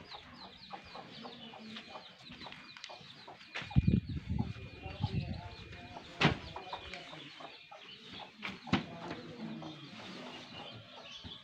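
Chickens clucking in the background while a stack of kapok mattresses is set down on a wooden pallet. A heavy, soft thud and rustling come about four seconds in, then two sharp knocks.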